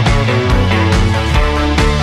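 Background music: rock-style track with guitar over a steady drum beat.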